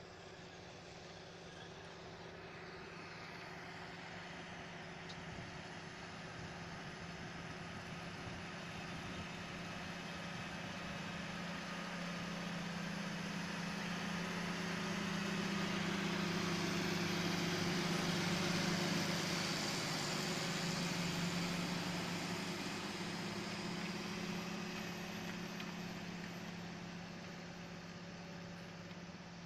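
John Deere 8430 tractor's diesel engine pulling a Horsch Joker disc harrow past, growing louder to a peak a little past halfway through and then fading. A steady low engine hum sits over a broad rushing noise.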